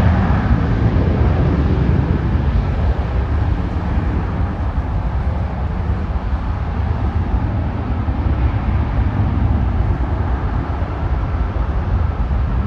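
Embraer E175's twin turbofan jet engines rumbling as the airliner passes on approach; a higher hiss fades in the first couple of seconds and the low rumble eases slightly as the jet moves away.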